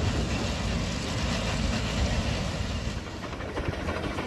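Stationary threshing machine running steadily, belt-driven by a steam traction engine, with a dense, steady mechanical noise that eases slightly about three seconds in.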